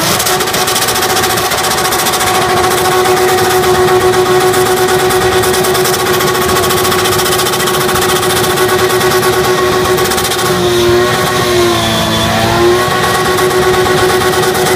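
Drift car's engine held at a steady high rev, the pitch wavering up and down for a couple of seconds near the end.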